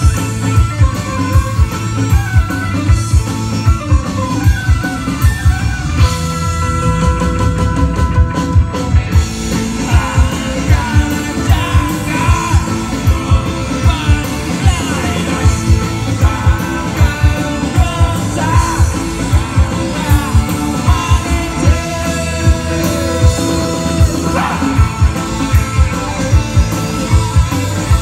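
Live rock band playing through outdoor PA speakers: a drum kit keeps a steady beat under electric guitars and bass, with singing over the top.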